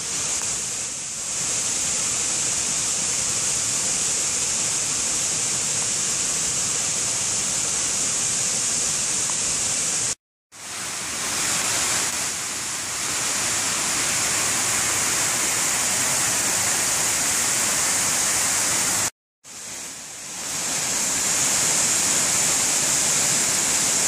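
Small forest waterfall and rocky creek cascade, water rushing steadily. The sound breaks off twice for a moment, about ten and nineteen seconds in, and builds back up after each gap.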